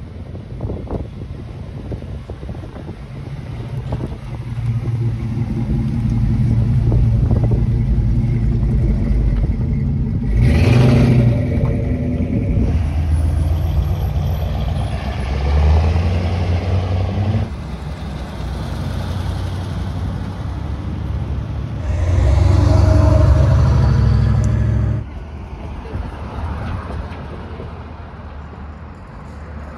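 Car engines running as cars drive past, in several loud stretches that start and stop abruptly. The loudest pass comes late on and cuts off suddenly.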